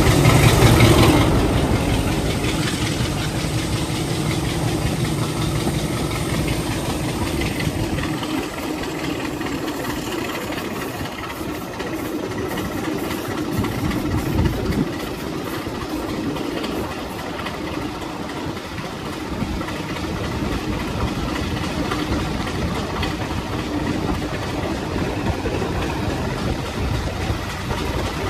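Class 33 diesel-electric locomotive's Sulzer eight-cylinder engine running steadily while the train is under way, with wheel-on-rail noise and wind at the open cab window. It swells for a moment about a second in as the locomotive passes under a stone bridge.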